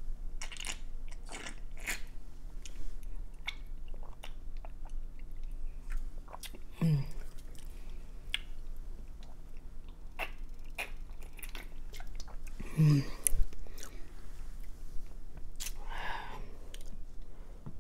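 Close-miked mouth sounds of a person eating: wet chewing and lip smacks, with a couple of brief low hums or vocal noises about a third of the way in and again past the middle.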